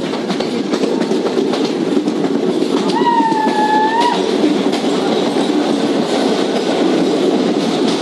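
Passenger train running, heard from an open coach doorway: a steady rumble and clickety-clack of wheels over rail joints. About three seconds in, a single horn blast lasting about a second sounds over it.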